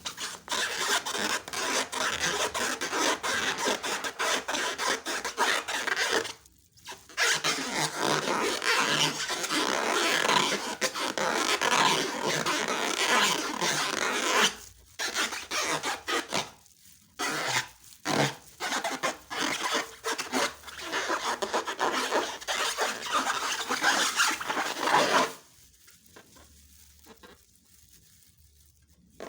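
Slime being worked by hand: a dense, crackly rubbing and squishing that goes on in long stretches with a few short pauses. It stops about 25 seconds in, and only faint sound follows.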